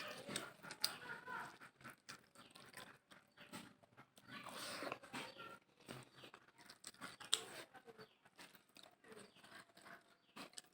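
Close-up eating sounds: irregular chewing, lip smacks and small mouth clicks of someone eating a rice meal with egg bhaja, dal and cabbage bhaji.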